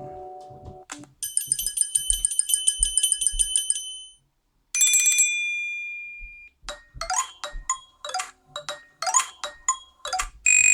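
Nokia 6 stock ringtones previewed one after another on the phone's loudspeaker: a melody ends about a second in, then a rapid, trilling high ring for about three seconds, a single chime that rings out, and from about seven seconds a quick tune of short notes.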